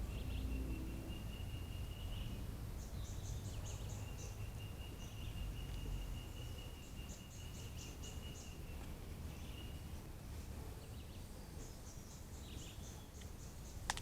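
Forest ambience: a steady high-pitched buzz, held for about two seconds and then again for about six, with scattered high chirps and clicks over a low rumbling background noise.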